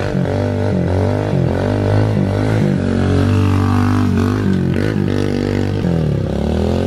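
Pit bike's small single-cylinder engine revving up and down again and again as the rider works the throttle to hold a wheelie, over a steadier low engine drone from a vehicle running alongside.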